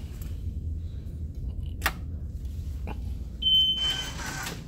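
A single steady electronic beep from the vending machine, lasting under a second, near the end. It follows two sharp clicks, over a steady low hum.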